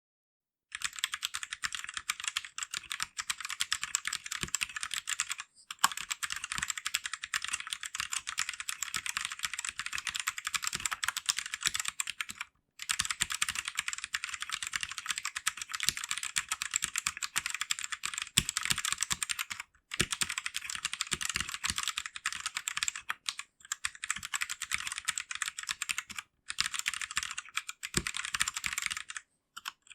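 Fast, continuous typing on an RK71 mechanical keyboard, a rapid run of key clicks broken by a few brief pauses, starting just under a second in.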